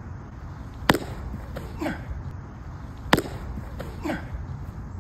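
A baseball smacking into a leather catcher's mitt twice, a little over two seconds apart, each catch followed about a second later by a short falling vocal grunt.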